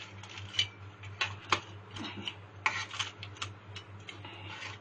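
Irregular light clicks and taps of a utensil against a baking tray as syrup-soaked filo pastry pieces are handled, over a steady low hum.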